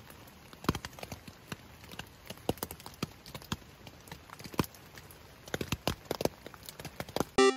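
Scattered water drops tapping irregularly on a tent's fabric, a few taps a second over a faint hiss. Music starts just at the end.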